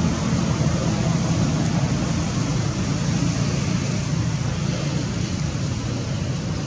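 Steady, loud rushing noise with a low rumble, unchanging throughout.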